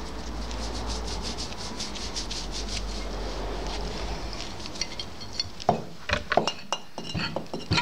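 Gloved hand rubbing copper anti-seize grease along a steel roller shaft in quick, even strokes. From about five and a half seconds in come sharp, irregular metallic clinks and knocks as the shaft is pushed into the mower's steel roller.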